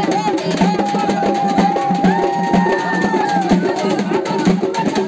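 A melam drum band drumming fast and densely, with a held high note sounding over the drums from about one second in to about three and a half seconds.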